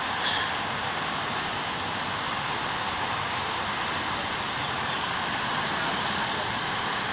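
Steady outdoor background hiss, even and unchanging, with a faint click about a third of a second in.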